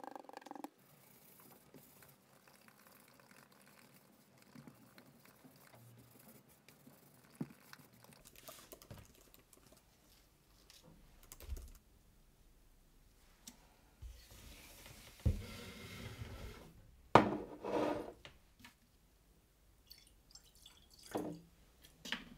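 Quiet handling of a leather dye bottle and a small glass jar: scattered knocks and clinks, the loudest a little past halfway, and dye being poured into the jar near the end. A brief rubbing of the dye dauber on leather at the very start.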